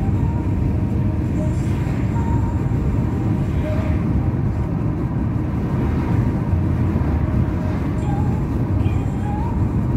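Steady road and engine noise inside a moving car's cabin: an even low rumble of tyres and engine at cruising speed.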